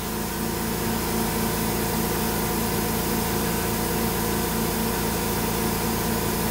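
Steady hum of a Pocket NC v2-50 desktop CNC mill running, several low steady tones under a hiss, unchanging throughout.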